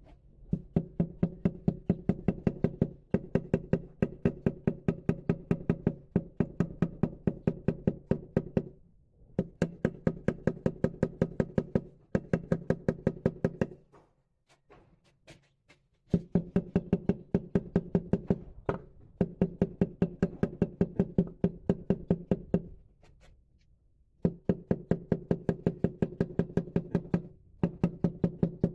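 A motor running in stop-start runs of a few seconds, with a steady hum and a fast, even clicking, pausing briefly between runs. This fits the repaired front-loading washer's drum motor turning the drum on a test run.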